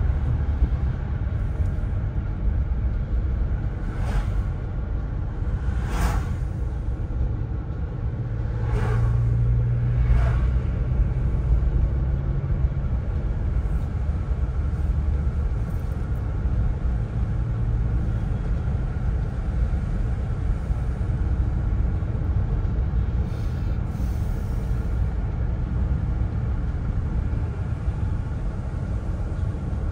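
Steady low engine and road rumble heard inside a moving car's cabin, with a few short swishes in the first ten seconds.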